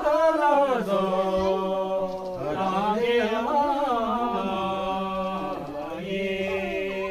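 Unaccompanied male singing in a slow, chant-like style, with long held notes that bend slowly up and down between breaths.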